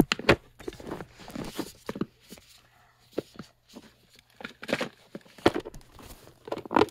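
Handling noise close to the phone's microphone: scattered knocks, clicks and rustling as the phone lies face down while the basket and its wrapping are worked on, with a quieter stretch in the middle.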